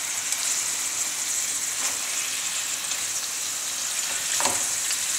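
Chicken pieces sizzling steadily as they brown in hot olive oil in a stainless steel pan.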